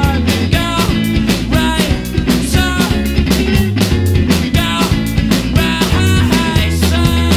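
Rock music with a steady drum beat and pitched melodic lines over a heavy bass.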